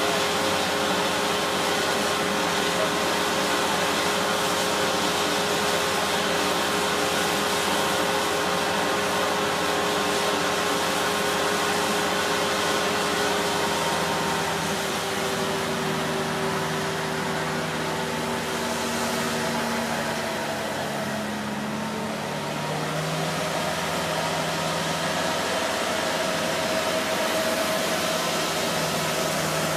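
Diesel engine of heavy construction machinery running steadily with a continuous drone; its hum shifts a little in pitch about halfway through.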